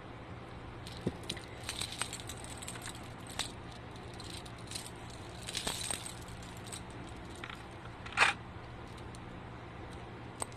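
Small metal jewellery parts, a fine chain and jump rings, jingling and clinking as they are handled with pliers, in scattered light clicks, with one louder sharp clink about eight seconds in. A faint steady hum runs underneath.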